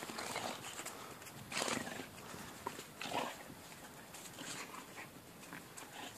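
Two American Staffordshire terrier puppies playing tug over a ball, with short breathy noises and paws scuffling in snow. The three loudest breaths come in the first half, about a second and a half apart.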